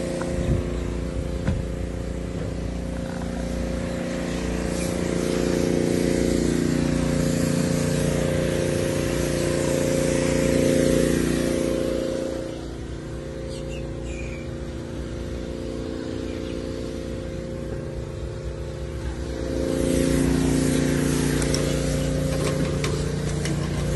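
An engine idling steadily with a low hum. It gets louder about four seconds in, quieter about halfway through, and louder again near the end.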